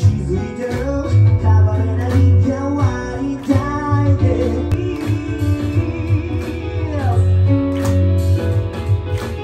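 Live pop song: a singer at the microphone singing a melody over electric keyboard accompaniment, with a steady bass line and beat.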